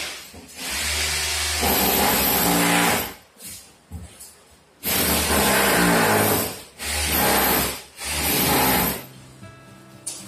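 Background music added in editing, in loud phrases with a deep bass line that break off briefly several times.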